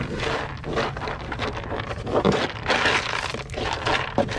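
Spilled dry dog kibble being swept by hand across a ribbed rubber floor mat at a van's door step and brushed out onto the ground, with many small irregular rattles and scrapes of the pellets.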